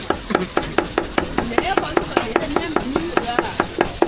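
Cleaver chopping stewed meat for roujiamo on a wooden board, a steady run of quick strokes at about five a second.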